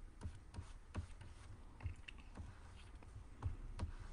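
Faint, irregular light taps and clicks, about two a second, from a stylus tapping and stroking on a graphics tablet while sketching.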